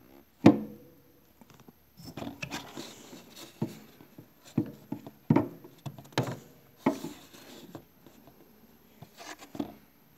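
Alligator test clips being handled and moved on the metal terminal pins of a refrigeration compressor. A sharp knock about half a second in rings briefly, then comes a run of clicks and rustles as the clips are repositioned.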